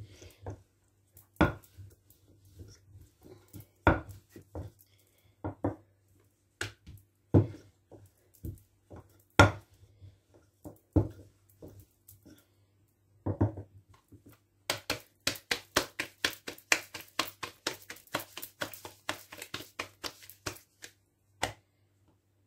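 A rolling pin knocks and rolls against a hard countertop as thin dough sheets are rolled out. At first the knocks are single and sharp, a second or two apart, then for about five seconds they come in a quick run of about four or five a second, with one last knock near the end.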